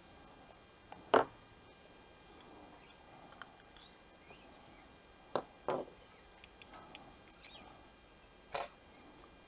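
Plastic carburetor parts of a Briggs & Stratton 500E engine clicking and knocking as the float bowl is pulled off the carburetor body and handled. There are four sharp clicks: the loudest about a second in, a quick pair about halfway through and one near the end, with faint ticks between.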